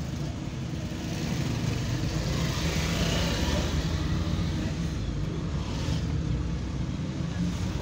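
Car engine and road noise heard from inside the cabin as the car pulls away in first gear through slow traffic, growing louder for a couple of seconds near the middle.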